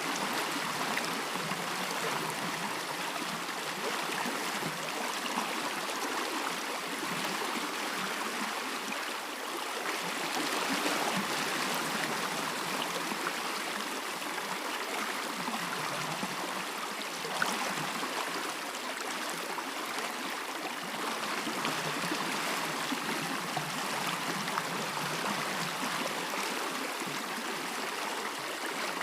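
A stream of running water, a steady even rush with no change in level. A single brief sharp sound stands out a little past halfway.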